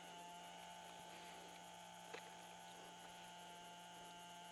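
Near silence: a faint, steady electrical hum at several fixed pitches, with one faint click about two seconds in.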